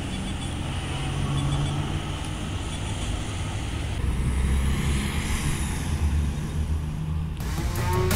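3D-printed 1/8-scale RC go-kart running on an asphalt track, a steady low rumble with faint motor whine. Music starts just before the end.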